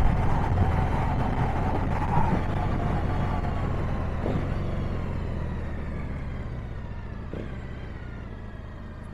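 Triumph Bonneville T100 sidecar outfit's parallel-twin engine slowing down with the throttle rolled off, its note falling steadily and growing quieter.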